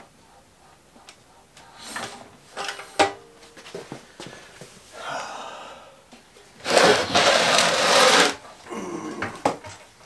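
Handling noises from an engine on its wooden shipping board being moved on a workbench: scattered clicks and knocks, then a loud scraping rush lasting about a second and a half about two-thirds of the way in, followed by more knocks.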